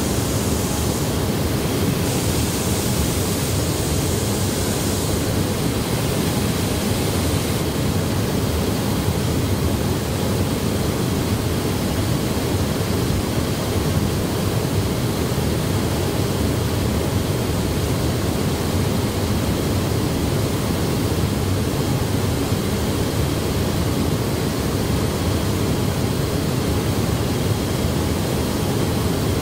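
Steady rushing noise without distinct events or rhythm: the ambient din of a car assembly plant floor.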